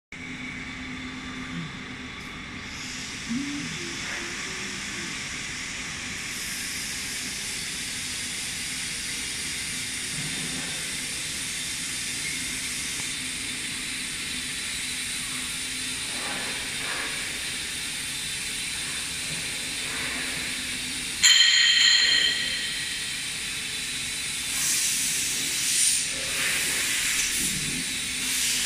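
Steady machine hiss and low hum with faint high-pitched tones, as of machinery running in a factory hall. About 21 seconds in, a louder high-pitched whine comes in suddenly for about a second and a half.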